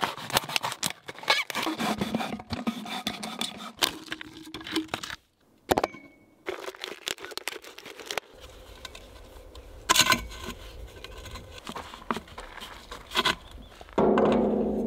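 Thin plastic drinks bottle crackling and crinkling as a knife cuts into it, with irregular clicks and a couple of louder knocks.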